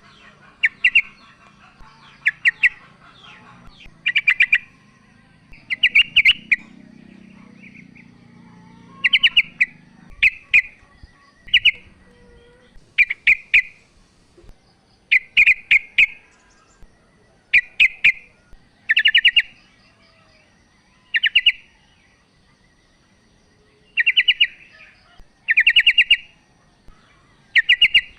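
Female yellow-vented bulbul (trucukan) calling to a male: short bursts of fast, chattering notes, repeated about every one to two seconds.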